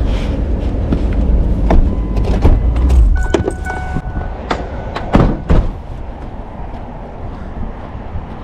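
Truck rumbling along, then easing off, with a run of clunks and knocks and a brief squeal around the middle; a quieter steady running hum after that.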